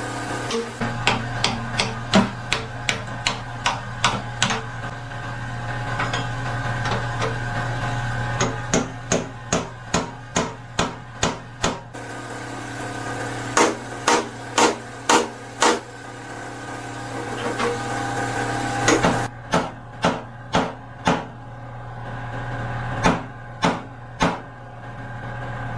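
Hand hammer striking the car's sheet-metal floor pan, which is being knocked loose from its welds. The blows come in several runs of sharp strikes, about two a second, over a steady low hum.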